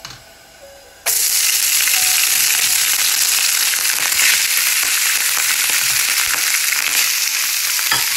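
Boiled, drained rice tipped into hot oil in a frying pan: the oil starts sizzling suddenly about a second in, then keeps up a loud, steady frying sizzle.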